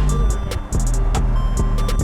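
Background music with a beat: deep bass notes, quick hi-hat runs and sharp claps.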